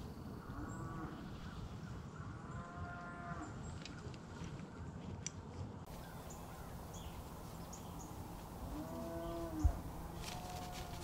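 Cattle mooing several times, drawn-out calls that rise and fall in pitch, over a low outdoor rumble. A single sharp knock near the end.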